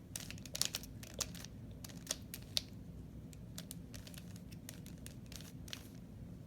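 3x3 Rubik's Cube being turned by hand: quick, irregular plastic clicks as the layers are twisted, coming thickest in the first few seconds and more spread out after.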